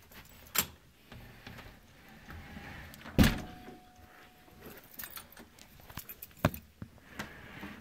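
Handling noise: a few scattered clicks and knocks, with one loud knock about three seconds in followed by a faint short ring.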